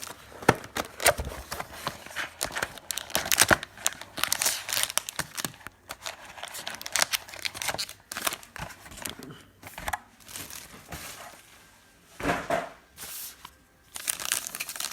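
Sports card packs being torn open by hand: the wrappers crinkle and tear in irregular crackling rustles, with a couple of short lulls near the end.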